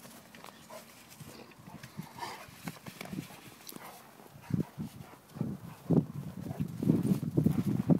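A Rottweiler and a black Labrador play-fighting on snow: scuffling paws and body knocks, then from about halfway on a run of louder, low, rough dog vocal sounds, growls and grunts of rough play, that build toward the end.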